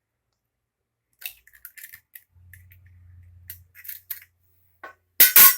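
An egg being cracked against the side of a bowl: a few light clicks, then two sharp knocks in quick succession near the end.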